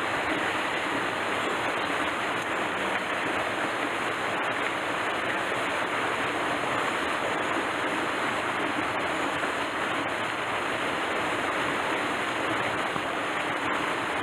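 Steady rush of a mountain stream, with a small waterfall falling into a rock pool.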